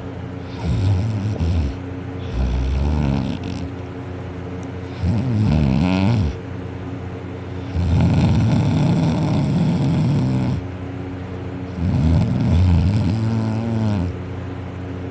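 A person snoring loudly in deep sleep, mouth wide open: five heavy snores a few seconds apart, each lasting one to three seconds.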